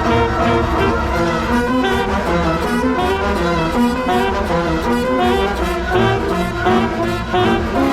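Wind band playing its show music: brass and saxophones sounding held notes that change pitch every second or so, over a strong low bass, with an alto saxophone close by.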